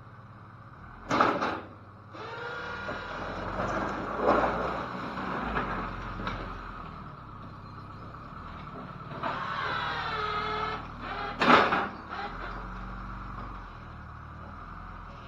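A vehicle engine running steadily under two loud sudden bangs, about a second in and again some ten seconds later, with stretches of a wavering pitched whine between them.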